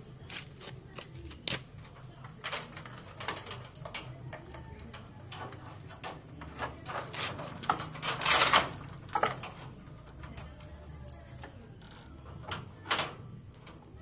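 Metal chain and padlock clinking and clanking against a steel wire-mesh gate as the gate is chained and locked. It is a string of irregular metallic clicks, with the loudest cluster about eight seconds in.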